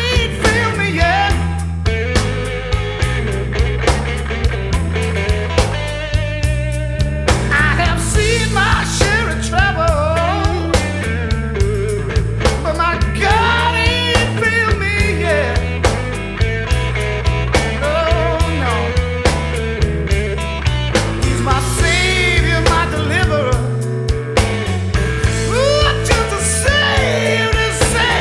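Background music: a rock song with a steady beat, in a stretch without sung words.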